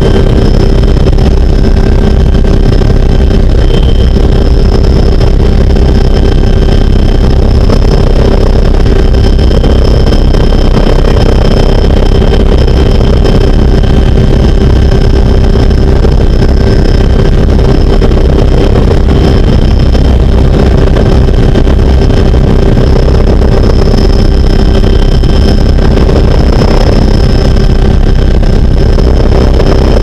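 Cabin noise of a Little Bird (AH-6/MH-6) light helicopter in flight: its Allison 250-series turboshaft and rotor make a loud, steady drone, with several high steady whining tones over a deep rumble.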